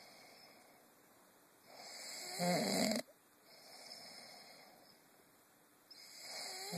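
A man snoring heavily in his sleep. One loud snore builds for about a second and stops abruptly, quieter breathing follows, and another loud snore begins near the end.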